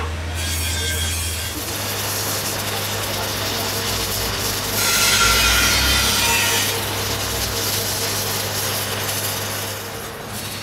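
Stick (arc) welding on a broken gear tooth: a steady crackling hiss from the arc, louder for about two seconds in the middle, over a low steady hum.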